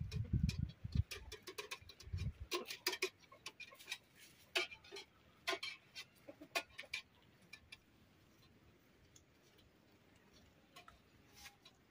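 Metal utensils being carried, a steel bucket's wire handle and pans giving irregular light clicks and taps, with a few low thumps in the first two seconds; the clicks thin out after about seven seconds.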